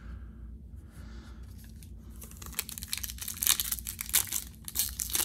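Foil wrapper of a Topps Opening Day baseball card pack crinkling and tearing as it is pulled open by hand, a dense crackle that starts about two seconds in.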